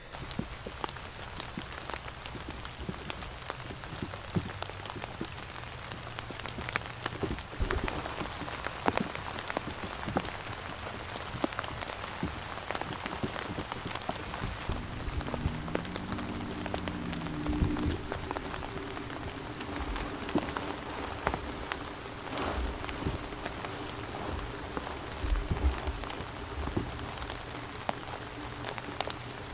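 Steady cold rain falling in the woods, a constant hiss of rain with many single drops ticking close by.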